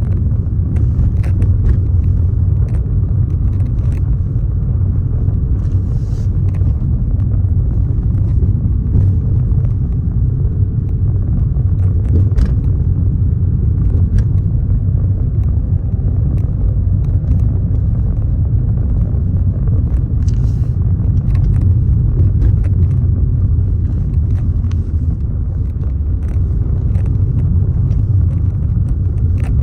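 Forest ambience dominated by a steady low rumble, with a few faint, short high ticks scattered through it.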